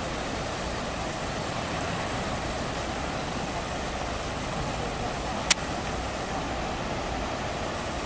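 Steady rush of river water spilling over a low concrete weir, with one sharp click about five and a half seconds in.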